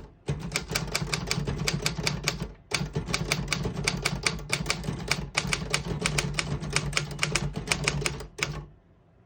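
Typing on a 1948 Royal KMM manual desktop typewriter: a quick, uneven run of key strikes, several a second, each type bar clacking against the platen. The typing breaks off briefly under a third of the way in and stops shortly before the end.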